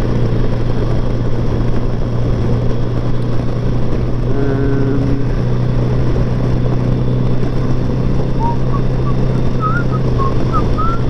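Kawasaki GTR1000's inline-four engine running at a steady cruise, a constant low drone under wind and road noise on the rider's camera. A brief pitched tone sounds about four seconds in, and a few short chirps come near the end.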